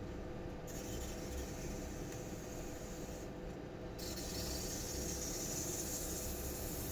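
Steam wand of a Breville BES870 espresso machine hissing while frothing milk, growing louder and brighter about four seconds in.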